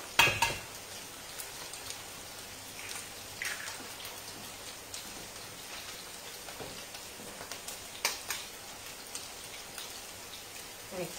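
Diced potatoes with garlic and onion frying in oil in a pan, a steady, even sizzle. A sharp knock comes just after the start, and a few fainter clicks follow.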